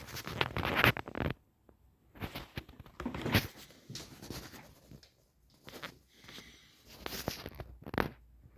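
Irregular rustling and clicking as a Pfaff 204 sewing machine and its parts are handled by hand, in uneven bursts with no steady running rhythm.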